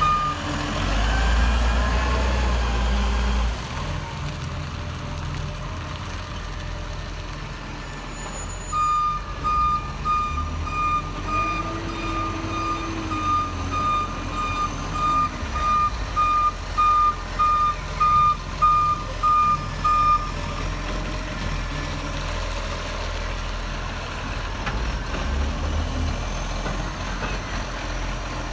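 Side-loader garbage truck's engine running, louder in the first few seconds. Its reversing alarm beeps steadily from about nine seconds in to about twenty seconds in as the truck backs up.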